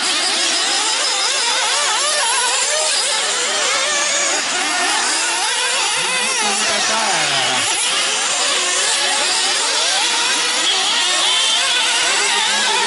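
Several nitro RC buggies' small glow-fuel engines racing at once, each whining high and revving up and down without pause as the cars accelerate and brake around the track, the pitches tangling over one another.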